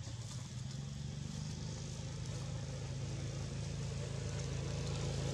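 A motor engine running steadily at a low, even pitch, slowly growing louder.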